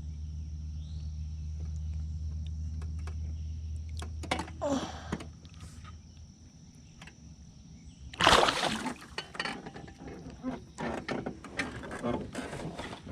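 Water splashing around a largemouth bass held by its lower lip at the surface for release, with a few small splashes, then one loud splash about eight seconds in and lighter splashes after it. A steady low hum runs under the first few seconds.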